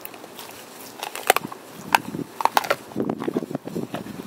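American Pit Bull Terrier chewing a raw turkey neck: a few sharp bone crunches from about a second in, then denser crunching and crackling in the second half.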